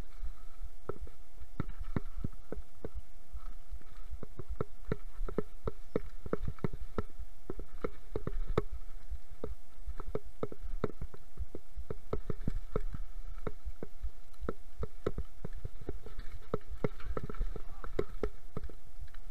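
Mountain bike rattling and clattering as it descends a rough, rocky dirt trail: a dense run of irregular knocks over a low rumble, with a faint steady tone.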